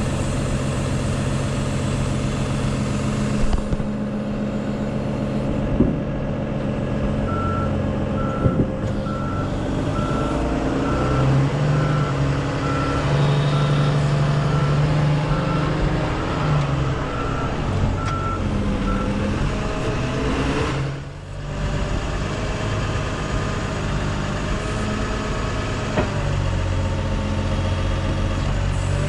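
Heavy diesel engine running, with a back-up alarm beeping steadily about twice a second for roughly twelve seconds, starting several seconds in. The engine gets louder in the middle, around the time of the beeping.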